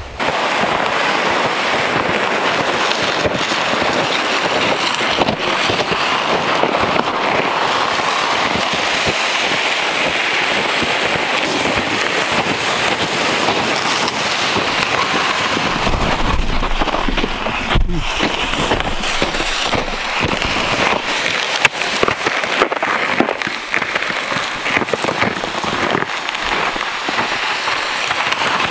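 Boots crunching and loaded sleds scraping over cold, dry snow on a forest trail, a dense, steady crackle.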